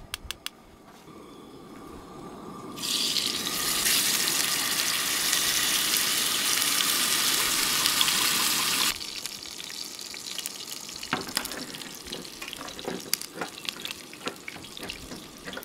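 Steak frying: a loud, steady sizzle starts about three seconds in and stops abruptly several seconds later, giving way to quieter crackling and popping of fat.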